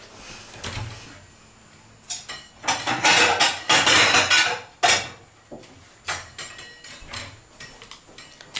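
Metal cutlery and dishes clattering, a busy run of clinks and knocks loudest about three to five seconds in, then a few lighter clinks.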